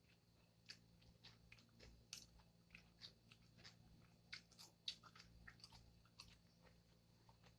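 Faint close-up chewing of food: irregular soft wet clicks and smacks of the mouth, a few a second.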